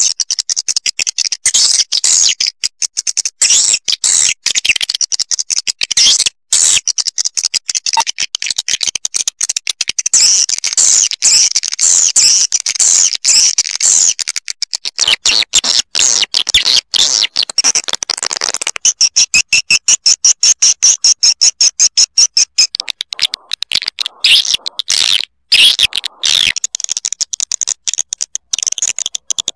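Swiftlet call sound, the lure track played in swiftlet houses to draw swiftlets in: a loud, dense run of rapid high twittering chirps, turning into a steadier fast trill from about 19 to 22 seconds in.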